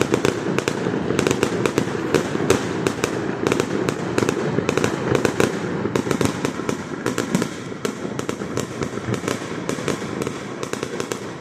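Stadium fireworks display in a loud, rapid barrage: many sharp pops and crackles bursting several times a second over a continuous rumble, thinning out a little near the end.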